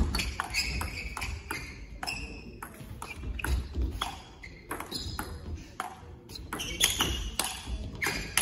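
Table tennis rally: the celluloid ball clicks sharply off the paddles and the table, about one or two hits a second at an uneven pace.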